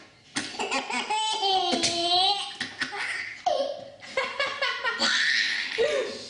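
Hearty laughter in repeated bursts, with pitch rising and falling.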